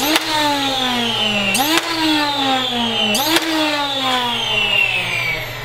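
Flywheel motors of an FDL-2 full-auto foam-dart blaster revving: a whine that jumps up sharply and slides slowly down in pitch, three times, about a second and a half apart.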